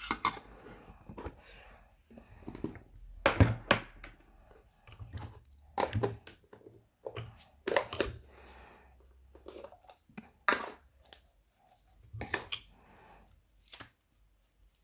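Slime being squished and pulled by hand, giving an irregular series of sharp clicks, snaps and wet crackles with short quiet gaps. The loudest is about three and a half seconds in.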